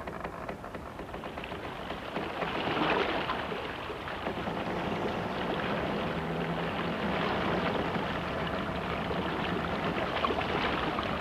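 Rushing, splashing river water, a steady dense spatter that swells about two seconds in and then holds.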